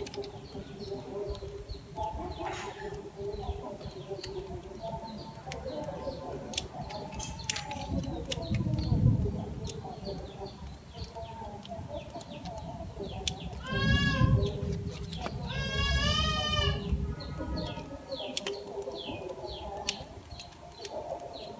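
Small birds chirping over a busy outdoor background, with an animal giving two wavering, bleat-like calls a little past the middle. Scattered sharp clicks, likely pruning shears snipping a bonsai, and a couple of low rumbles, the loudest near the middle.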